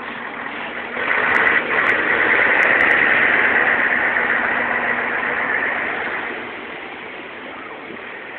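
Motor vehicle engine running close by in street traffic. It swells about a second in, stays loud for about five seconds, then fades back to the traffic hum.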